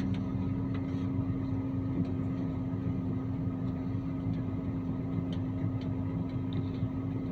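Self-propelled forage harvester's engine running steadily, heard from inside the cab as a constant low drone with a steady hum.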